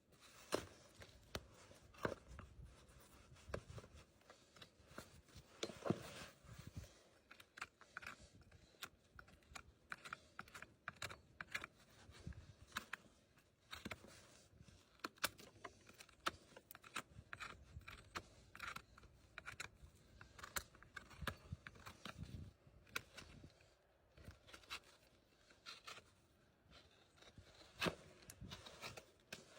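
Hoof trimming at close range: irregular sharp clicks and short scraping and paring strokes as tools cut into a horse's hoof.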